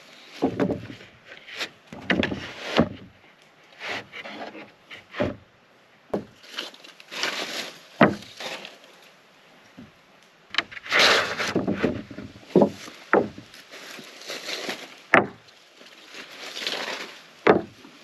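Freshly sawn poplar boards being stacked by hand, sliding and scraping as they are pushed onto the pile. Sharp wooden knocks come at irregular intervals as boards and spacer strips are set down against each other.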